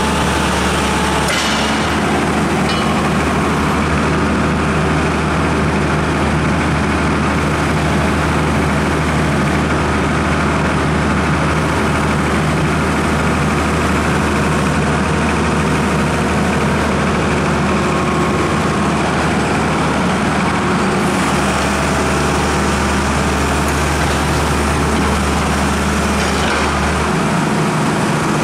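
Diesel engine of a 2001 Hyundai R220LC-3 crawler excavator idling steadily with a constant low hum.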